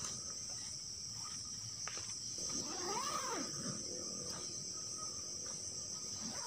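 A single drawn-out, cat-like animal call about three seconds in, rising and then falling in pitch over about a second, heard over a steady high chorus of night insects such as crickets.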